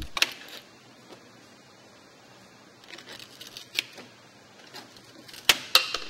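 A few sharp clicks and light metallic taps from a steel bird stop strip being handled and positioned, with two quick clicks close together near the end.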